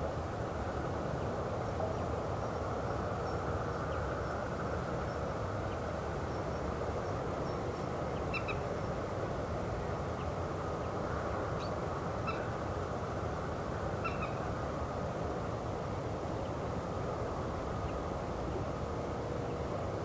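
A steady low rumble of outdoor ambience, with a few short bird calls about eight, twelve and fourteen seconds in.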